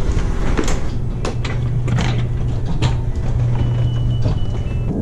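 Segway Mini Pro self-balancing scooter rolling: a steady low hum with a string of sharp knocks and clatters as it moves over the ground.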